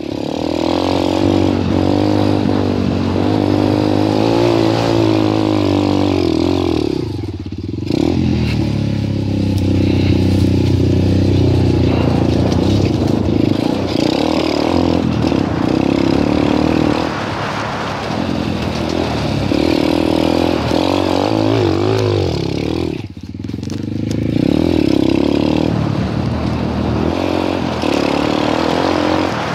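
Dirt bike engine running along a trail, heard from the rider's head, its pitch rising and falling with the throttle. The engine note drops away twice, about seven and about twenty-three seconds in, as the throttle is closed, then picks up again.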